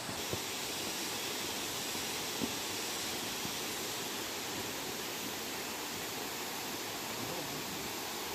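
Steady rushing of a waterfall, an even wash of falling water with no change.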